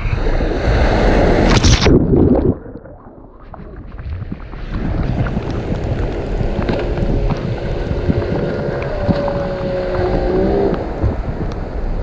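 Caribbean surf washing over a camera at the waterline: a wave breaks over it in the first two seconds, then the sound drops and dulls for about two seconds. Shallow surf then washes on, with the steady drone of a small motorboat's engine from about six to eleven seconds in.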